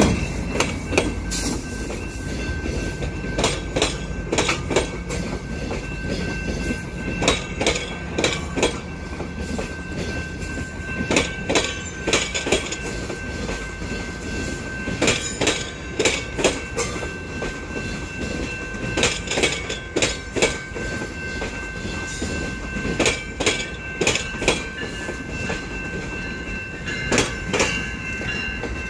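Bombardier bilevel commuter coaches rolling slowly past, their wheels clacking over rail joints in groups of clicks about every four seconds as each truck passes, over a steady rumble. A steady high tone runs underneath.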